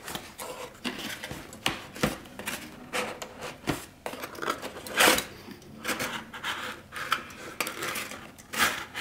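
Cardboard packaging scraping, rubbing and knocking as a CPU cooler is pulled out of its box and cardboard inserts: a run of short, irregular scrapes and taps, loudest about halfway through.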